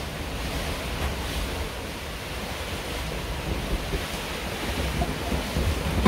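Wind and rough seas rushing past a sailing catamaran under way, with a steady low rumble of wind on the microphone and a few louder knocks near the end.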